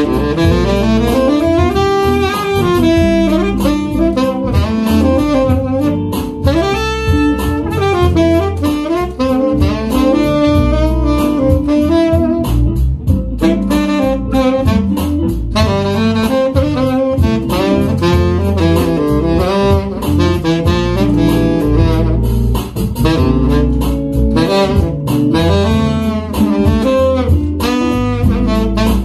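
Jupiter 889SG tenor saxophone playing a melody of moving notes and quick runs over a backing track with a bass line.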